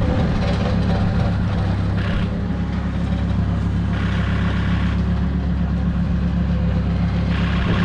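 Skid steer's diesel engine running steadily at a low, even pitch, with a harsher, higher sound rising over it a few times, around four seconds in and again near the end.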